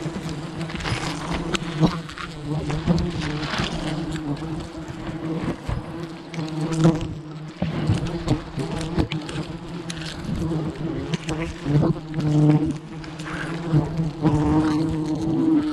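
A swarm of giant honeybees (Apis dorsata) buzzing around their cut-open nest in a dense, steady hum, roused by the honey harvest, with scattered clicks and knocks over it.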